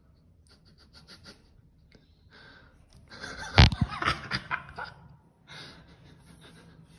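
Short breathy puffs with a sharp knock about three and a half seconds in, when a tabby cat swats at the phone that is filming it, followed by a flurry of scuffing and more puffs.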